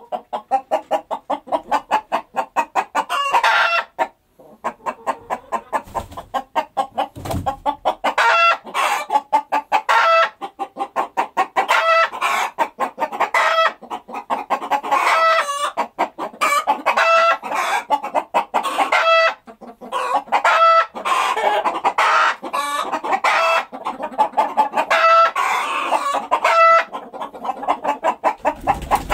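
Rooster clucking in quick repeated pulses, about three or four a second, with short pitched calls about once a second.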